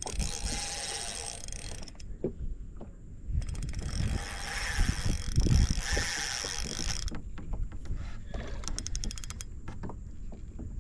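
Fishing reel drag buzzing as line is pulled off in two runs, about two seconds at the start and about three and a half seconds from a few seconds in, then a short run of rapid clicks later on. A big hooked redfish is taking line against the drag.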